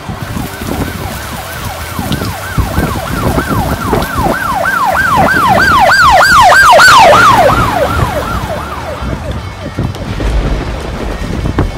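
Emergency vehicle siren on a fast yelp, rising and falling about three or four times a second. It grows louder to a peak about six to seven seconds in, then fades as it passes, with the noise of wind and rain beneath.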